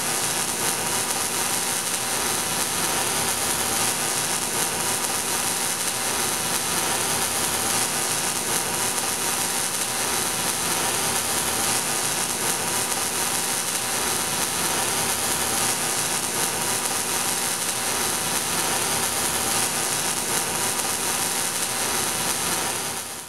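MIG (wire-feed) welding arc crackling and sizzling steadily as a bead is laid, then cutting off abruptly.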